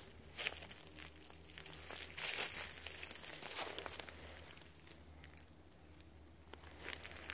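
Footsteps crunching on loose rock and dry brush, a run of uneven steps, loudest about two seconds in.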